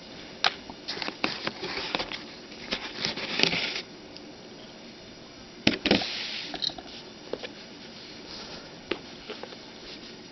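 Hands handling a wristwatch and its packaging: a run of rustles and light clicks, a sharp click and a knock about six seconds in, then a few scattered clicks.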